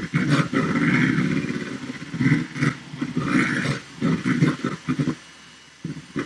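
Electric hand mixer whirring as it whisks egg whites in a bowl toward soft peaks, with a dog growling at the noise. The sound is uneven, surging and breaking up from about two seconds in.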